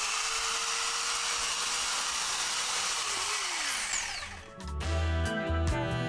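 Handheld electric power cutter running and slicing through thick upholstery foam, its motor whine falling as it winds down about four seconds in. Background music with a steady beat follows.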